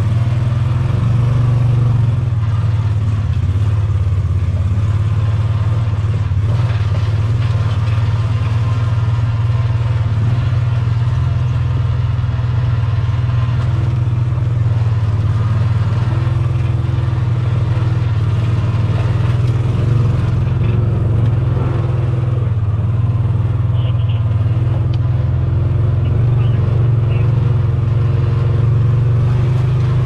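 A motor vehicle driving, its engine and running noise making a steady low drone.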